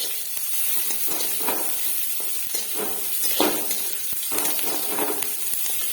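Hot oil sizzling in a pan as a spice tempering fries, with occasional short knocks of a spoon stirring it.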